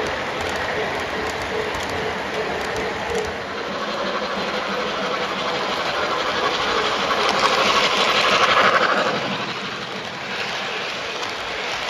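O gauge model train of a Southern PS-4 streamlined steam locomotive and passenger cars running on three-rail track, with steady wheel rumble and clicking over the rails. A louder hissing rush comes about eight seconds in as the locomotive passes close by.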